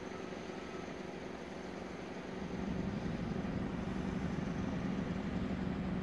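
Motor vehicle running: steady engine and road rumble with a low hum that grows louder about two and a half seconds in.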